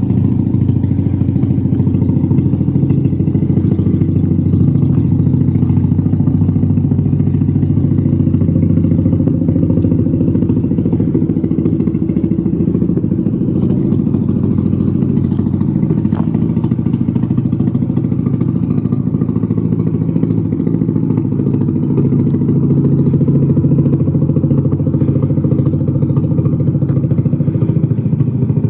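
A 2007 Mazda RX-8's two-rotor Renesis rotary engine running loud and steady, its exhaust blowing out at a loose mid-pipe joint whose bolts were never tightened, so it sounds like open headers.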